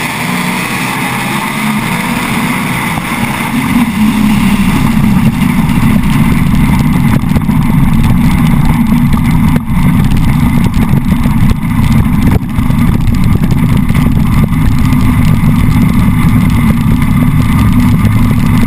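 Naturally aspirated small-block Chevy V8 of a sand drag jeep running at a steady throttle, heard close from a camera mounted on the car; it gets louder about four seconds in.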